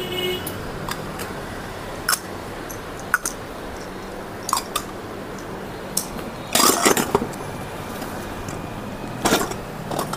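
Plastic vacuum cupping cups clicking and clattering as they are taken off the back and packed into their box. Single clicks come every second or so, then a longer rattle about six and a half seconds in and another short clatter near the end.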